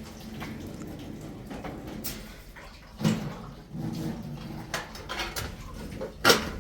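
A few knocks and clatters of things being handled, the loudest a sharp knock near the end, over a low steady rumble.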